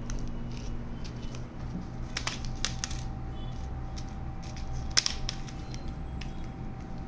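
Sealed foil test-cartridge pouches handled and set down on a hard tabletop: a few scattered crinkles and sharp clicks, the sharpest about five seconds in, over a low steady hum.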